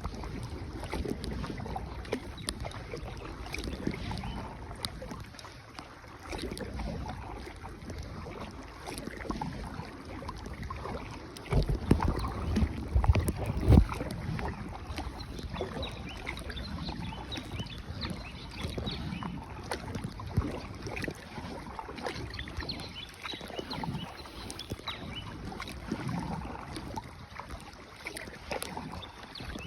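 Paddles working the water from a small rowed boat, with wind buffeting the microphone, heard as a louder low rumble in a stretch near the middle.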